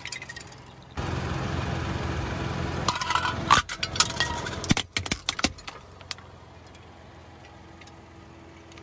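Car tyre rolling over bead-filled plastic bottles on tarmac: a steady rumble of the tyre, then a quick run of sharp cracks and snaps as the plastic breaks and beads scatter, about three to five and a half seconds in. After that there is a quiet steady hum.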